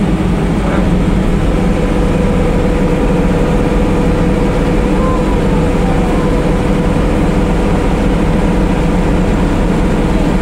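Rice combine harvester's engine and machinery running steadily under load, heard from inside its cab, with a steady whine on top, while its grain-unloading auger empties grain into a truck.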